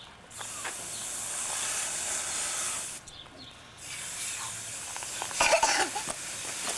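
Steady high-pitched hiss, cut off twice by short drop-outs, with a brief louder rustle or knock about five and a half seconds in.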